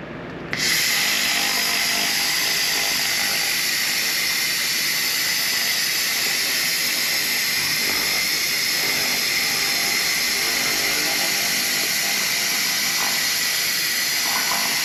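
Handheld laser cleaner burning rust off steel body panel: a loud, steady hiss that starts about half a second in.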